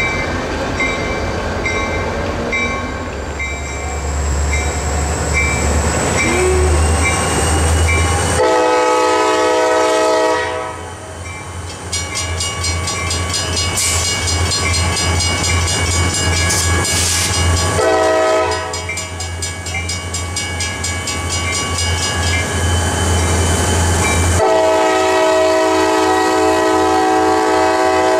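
CSX diesel freight locomotive horn blowing a long blast, a short one and another long one as the train approaches and passes, over the low rumble of the diesel engines. Before the horn, a regular ringing of about two strokes a second, typical of a grade-crossing bell.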